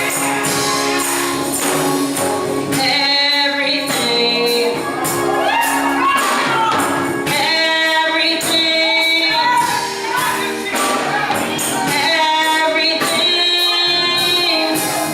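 Gospel choir singing with instrumental backing and a tambourine shaken in rhythm.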